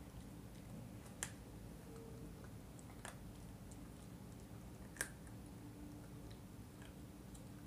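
Miniature schnauzer gnawing a raw chicken drumstick: faint chewing with three sharp cracks of teeth on bone, about one, three and five seconds in.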